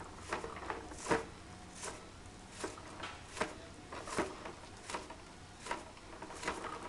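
Small electric motor spinning the rotating bristle sweeper brush of a leaf-collecting machine: a low steady hum with a regular brushing knock about every three-quarters of a second as the brush turns.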